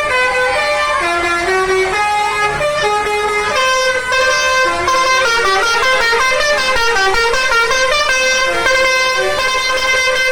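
Indonesian telolet bus horns (basuri melody horns) playing a loud tune, the notes stepping up and down in quick succession with barely a break, sometimes several notes sounding at once.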